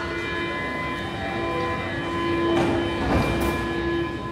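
Stockholm metro train, with a steady electrical whine of several even tones over a low rumble and a brief hissing rush about three seconds in.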